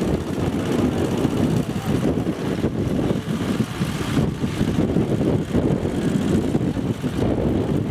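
Walking-tractor (motoculteur) engine running steadily.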